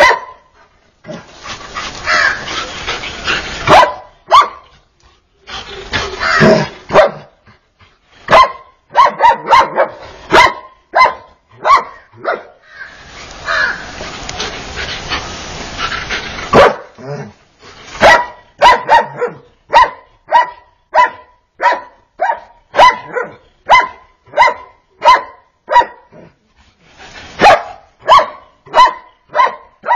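Dog barking in short, sharp barks, coming in quick runs of about two a second through the second half, with long stretches of dense noise between the barks in the first half.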